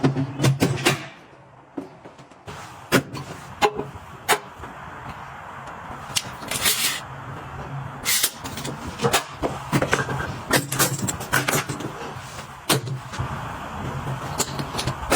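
Irregular clicks, taps and knocks of small containers and packaging being handled and set down during organizing, with a short rustling hiss partway through and a steady low hum underneath.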